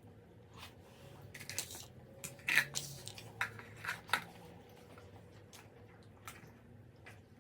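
Close-up eating sounds: a run of crisp crunches and clicks lasting about three seconds, then a few faint ticks.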